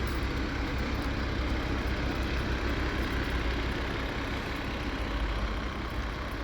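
Heavy truck engine idling steadily, a low even rumble.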